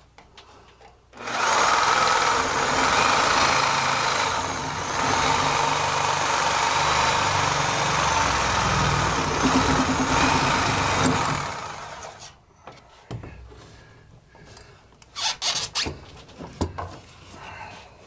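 Milwaukee Sawzall 12-amp corded reciprocating saw cutting through a PVC pipe fitting, running steadily for about ten seconds with a brief dip about three seconds in, then stopping. A few knocks and rattles follow near the end.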